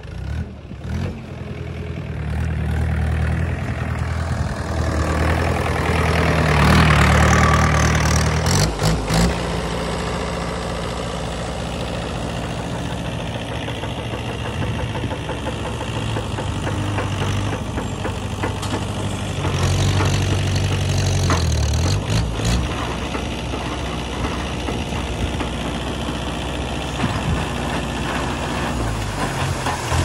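Mahindra 475 DI tractor's four-cylinder diesel engine running under load, louder from about two to nine seconds in and again around twenty seconds, while the hydraulic tipping trailer rises and its load of soil slides out.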